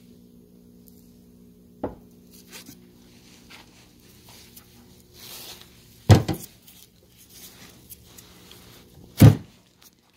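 Heavy knocks of a cast-iron Ford E7 cylinder head being moved and turned over on a wooden workbench: a light knock about two seconds in, then two loud thuds about six and nine seconds in, over a steady low hum.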